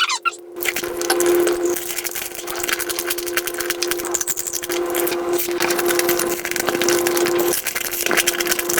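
Eating sounds of soy-sauce-marinated crab, played back at several times normal speed: dense, rapid crackling and cracking as shell is bitten and chewed, over a steady hum.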